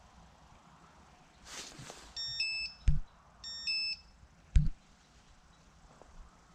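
Electronic carp bite alarm sounding in two short bursts of steady, high-pitched tone, each about half a second long, with two loud dull thumps, one right after the first burst and one about a second after the second.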